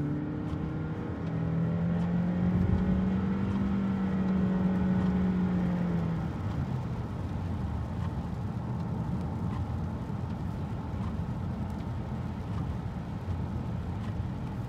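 Inside the cabin of a 2018 Honda Accord Sport with its 1.5-litre turbocharged four-cylinder: the engine note rises over the first couple of seconds as the car accelerates, holds steady for a few seconds, then fades. After that only the even hiss of tyres on the rain-wet road is left.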